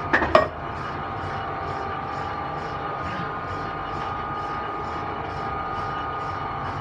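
Two sharp knocks near the start, then steady workshop machinery hum with a high whine that pulses about twice a second.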